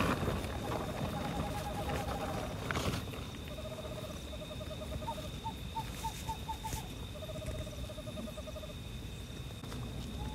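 Night-time animal calls: several short runs of rapid, evenly spaced calling notes, one run slower and higher than the others, over a steady thin high insect drone. There are a couple of brief knocks, one at the start and one about three seconds in.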